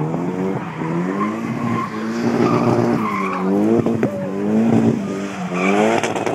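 Drift car's engine revving up and down again and again, about five times, as the car slides sideways around a tyre barrier, with its tyres squealing.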